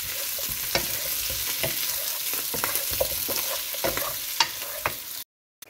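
Sliced boiled potatoes and button mushrooms sizzling in an oiled frying pan while a wooden spoon stirs them, scraping and knocking against the pan. The sound cuts off suddenly near the end.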